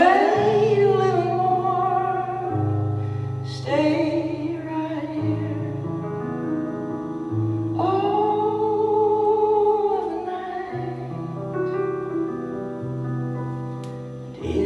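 A man singing live at an electric keyboard: three long, drawn-out sung phrases with vibrato over held low keyboard chords.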